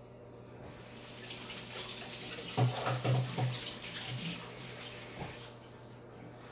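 Kitchen tap running for several seconds, then fading out, with a few knocks and bumps about halfway through.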